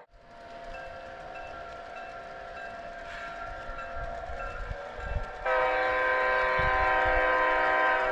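Sound from a Soundtraxx Blunami decoder in a G-scale model diesel locomotive: the bell rings with short repeating notes, then about five and a half seconds in a long, loud air-horn blast sounds over it.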